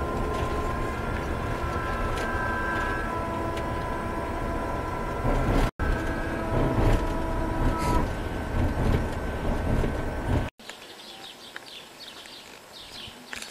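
Steady engine and road noise inside a moving coach, with a few faint steady tones over it. About ten seconds in it cuts off to a much quieter outdoor scene with a few faint bird chirps.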